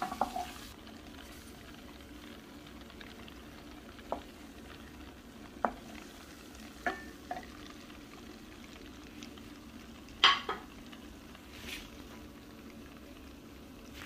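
Butter simmering in a steel pot as it clarifies into ghee: a faint, steady sizzle of fine bubbles, as the water cooks out and the butter turns transparent. A few sharp clicks stand out, the loudest about ten seconds in.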